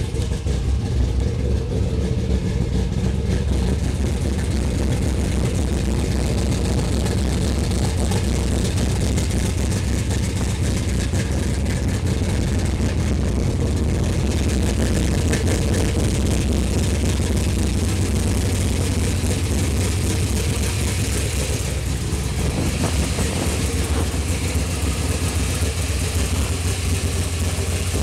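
1968 Chevy C10 pickup's engine idling steadily, heard through its exhaust with ceramic-coated headers.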